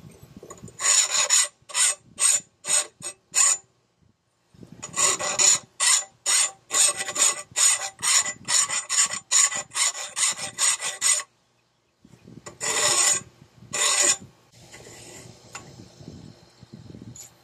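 Hand file rasping along the steel edge of a Honda HRC216 mower blade clamped in a vise, sharpening the edge and working out its divots. It goes in quick strokes about two a second, in runs broken by short pauses, with fainter scraping near the end.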